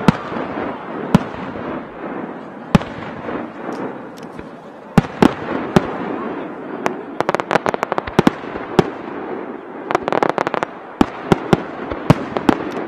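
A starmine fireworks display: aerial shells bursting in a rapid-fire sequence. A few sharp bangs come spaced a second or more apart at first, then quicken into dense rattling clusters of reports over a continuous crackle.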